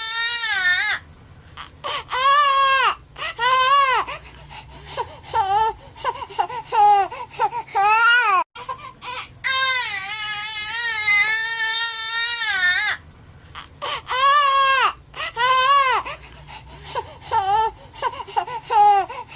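Infant crying: a long, wavering wail, then a string of short, gasping cries, with the same sequence coming round again about halfway through, as in a looped sound effect.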